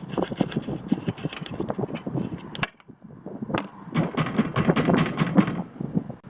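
Rapid clicking and scraping of hand work on small metal parts, as in cleaning a refrigerator's gas burner, stopping briefly about three seconds in, then going on.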